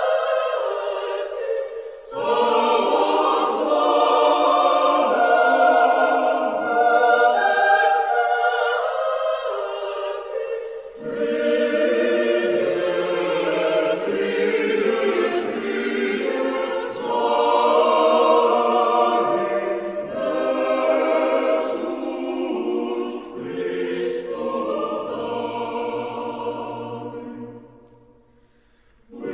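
Choir singing in long held phrases, dropping out briefly near the end.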